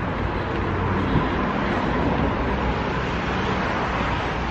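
Steady street noise with a low traffic rumble.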